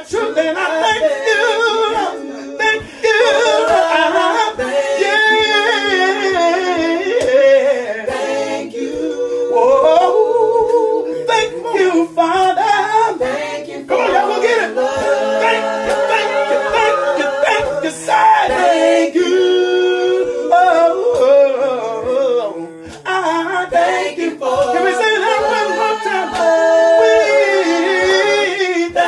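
Several voices singing a gospel song together in harmony.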